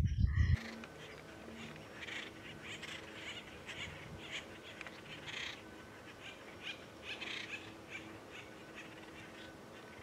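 Acorn woodpeckers calling: faint harsh calls in short, irregular runs.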